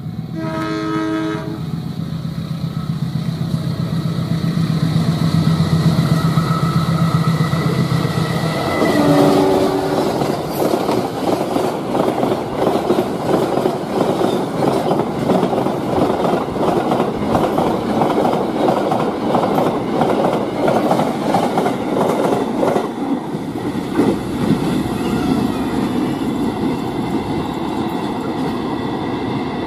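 Diesel locomotive sounding its multi-tone horn in a short blast and running with a steady low engine hum, then a second brief horn blast about nine seconds in. A freight train of container wagons then passes close by, its wheels clacking rhythmically over the rail joints for several seconds before easing to a softer rumble near the end.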